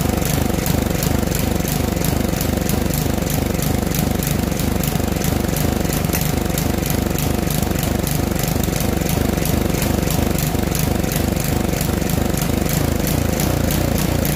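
Poulan Pro mower's small petrol engine running steadily with an even firing beat, while the throttle linkage on its carburetor is handled.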